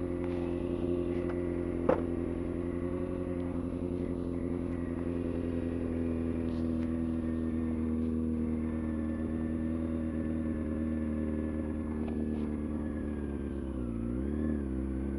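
Honda CBR600F4i's inline-four engine running steadily, with one sharp knock about two seconds in. Its pitch dips briefly and comes back up near the end.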